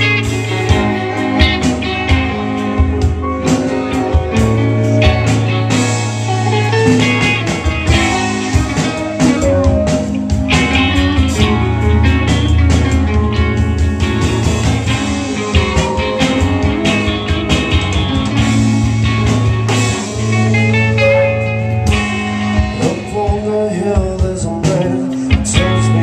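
A live band playing loud amplified rock: electric guitars over drums.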